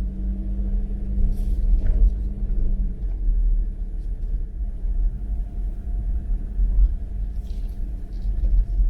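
Steady low rumble of a motor vehicle on the move, with a faint hum that fades out about three seconds in.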